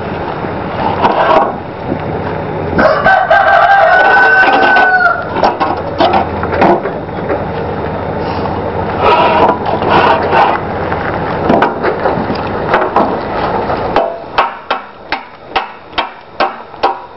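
A rooster crows, one call held about two seconds, and chickens cluck. Then a steel dressing knife chops the edge of a Westmorland green roofing slate over the trestle edge in a steady run of sharp knocks, about two a second, during the last few seconds.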